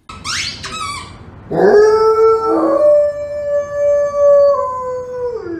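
Golden retriever howling: one long howl of about four seconds that rises at the start, steps up in pitch midway and falls away at the end. A few brief high squeaks come before it.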